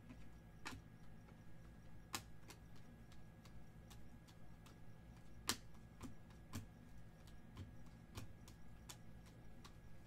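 Stack of glossy basketball trading cards being flipped and slid through the hands, making irregular sharp clicks and snaps as each card moves off the pile. A steady low hum runs underneath.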